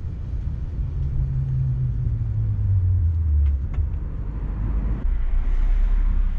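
Nissan Leaf electric drive motor and gearbox in a converted Porsche 996 moving the car slowly: a low rumble with a hum that drops in pitch over a couple of seconds as the car slows, and a few light clicks, which the owner puts down to cables and bolts not fully fastened.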